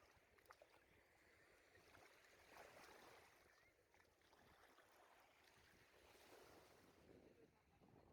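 Near silence: a faint, swelling wash of waves on the shore, with a couple of soft clicks about half a second in.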